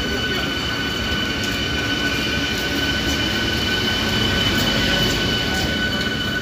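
Electric MEMU train pulling out and rolling past, its wheels running on the rails with a steady rumble under a constant high whine.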